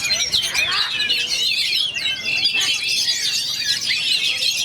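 Many oriental magpie-robins (kacer) singing at once, a dense mix of overlapping fast whistles, trills and chattering notes that keeps going without a break.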